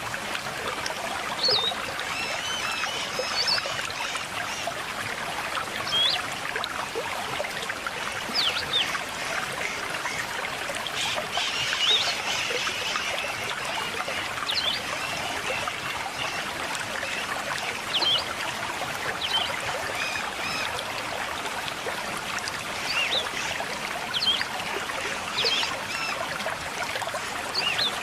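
River water running and trickling steadily, with birds chirping over it in short calls scattered through the whole stretch.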